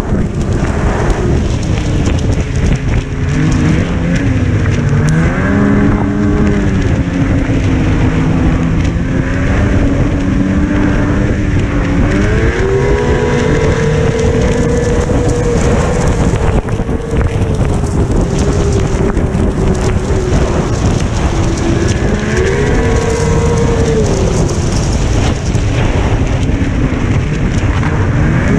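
Snowmobile engine running at speed, its pitch rising and falling several times with the throttle, under a steady, heavy rush of noise.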